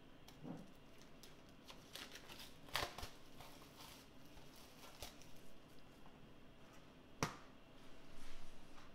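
Plastic shrink wrap being torn and peeled off a steelbook disc case: scattered crinkling and crackling, with a sharp snap about three seconds in and another about seven seconds in.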